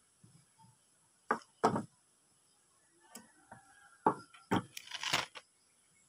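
Sharp knocks and clatter of a small metal tool and a grinder armature being handled on a wooden workbench: two knocks, then a quick cluster of clattering knocks near the end.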